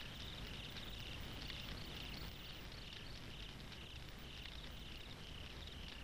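Crickets chirping in a steady repeated pattern, high-pitched, over a low steady rumble of night ambience.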